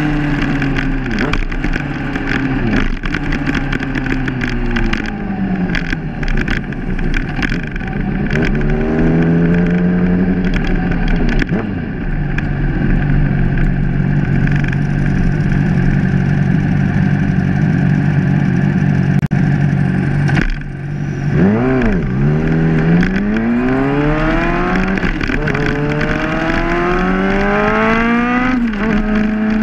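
Sportbike engine under way, heard from on the bike. The engine note falls at first, climbs and then holds steady at cruise. After a brief drop in the throttle about two-thirds through, it climbs in a long rising pitch as the bike accelerates, falling back with a shift just before the end.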